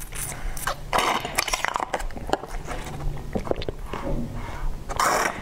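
Close-up mouth sounds of sipping milk through a straw from a small carton: wet sucking and slurping with small clicks, and louder hissy draws about a second in and near the end.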